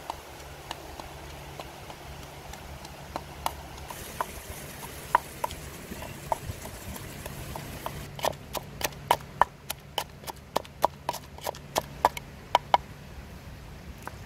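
Pestle pounding chillies and garlic in a clay mortar: scattered knocks at first, then a quick, steady run of strokes, about four a second, that stops shortly before the end.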